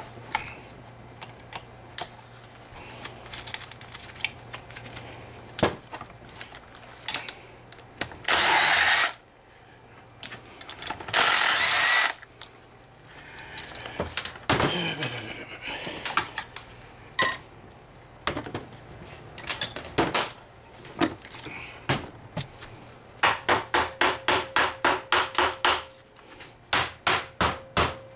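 A handheld power drill/driver runs in two bursts, about a second each, on bolts of an outboard powerhead, among clinks of tools and parts. Near the end comes a fast run of sharp hammer taps, about six a second, then a few more.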